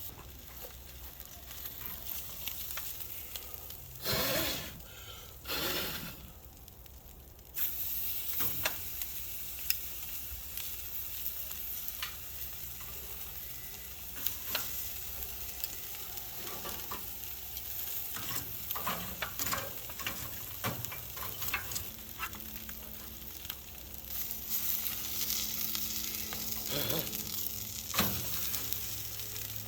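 Bone-in ribeye sizzling directly on red-hot hardwood lump charcoal, a steady sizzle with frequent sharp crackles and pops from the coals. Two louder rushing swells come about four and six seconds in.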